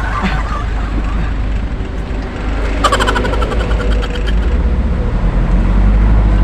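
Truck engine running with a low drone that grows louder near the end, and a brief buzzing rattle about three seconds in.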